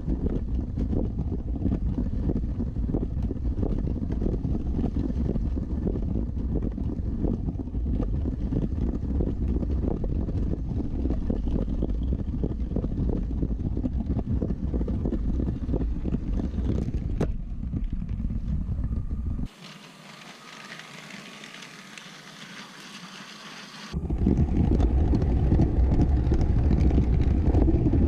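Motorised Lego City train running on plastic track, with a steady low rumble of motor and wheels. About two-thirds of the way through it abruptly drops to a quieter hiss for a few seconds, then cuts back in louder.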